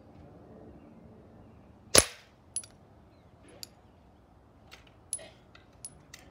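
A single sharp crack of a Hatsan air rifle firing about two seconds in, followed by several faint, light metallic clinks over the next few seconds as the hanging metal gas canisters that serve as targets swing and knock against each other.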